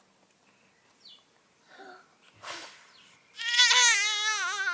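Baby squealing and babbling with delight, a loud high-pitched warbling voice that wobbles up and down in pitch, starting about three and a half seconds in. Before it, a short breathy puff.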